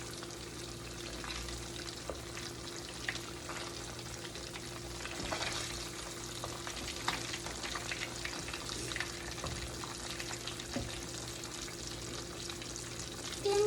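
Food frying in a pan, with a steady sizzle and scattered small crackles and pops over a steady low hum.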